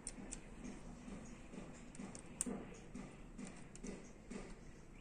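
Faint, irregular metal clicks and ticks of a hex key working a bolt in a Dahon folding bike's stem hinge block.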